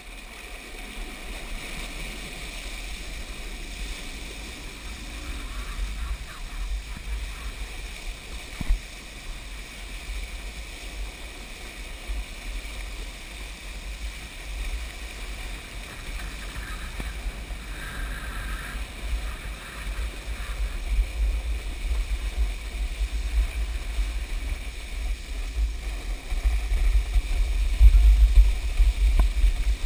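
Water rushing and spraying around a pair of water skis towed behind a motorboat, with wind buffeting the microphone as a low rumble. The sound builds as the skier gets up to speed and is loudest near the end.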